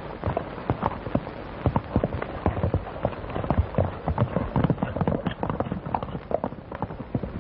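Hooves of two horses clopping on a dirt road as they are ridden off, irregular hoofbeats several times a second.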